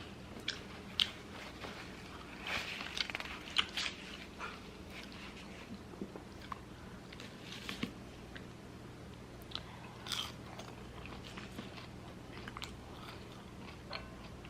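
Close-up mouth sounds of a person eating: crisp crunching bites and chewing, busiest about two to four seconds in, with another loud crunch about ten seconds in.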